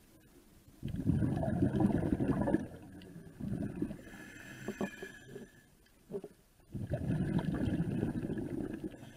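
Scuba diver breathing through a regulator underwater: two long rushes of exhaled bubbles about six seconds apart, with a quieter hissing inhale between them.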